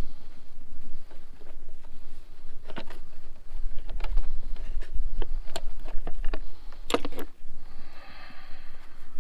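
Clicks and knocks of hard plastic as the air-filter cover of a riding mower's engine is handled and a panel-type air filter is set in its housing, with a cluster of knocks about seven seconds in. A low rumble of wind on the microphone runs under it.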